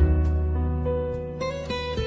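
Instrumental background music: plucked guitar notes over a held low bass note that comes in at the start.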